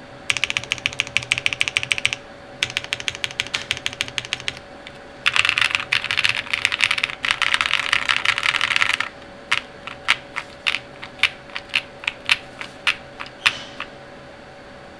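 Typing on a KBDFans Odin mechanical keyboard with lubed Durock POM switches, a polycarbonate plate, full foam and DCX Hyperfuse keycaps. Two runs of steady typing, then a fast, dense flurry of keystrokes, then single key presses about twice a second that stop a second or so before the end.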